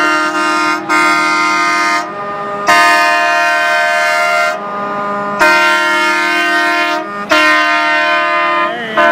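Truck air horns blowing in a series of long blasts, about five in a row, each one or two seconds long and holding a steady chord of several notes.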